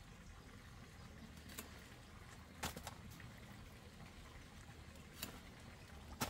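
About five sharp snips and clicks of a blade cutting through luffa stems. The loudest come in the middle and near the end, over a faint background.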